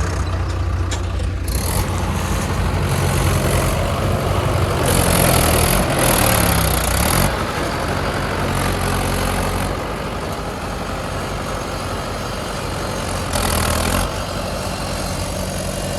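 Heavy diesel engine running under load, revving up and down about four to seven seconds in. Short bursts of hiss come several times, the loudest around five to seven seconds and again near fourteen seconds.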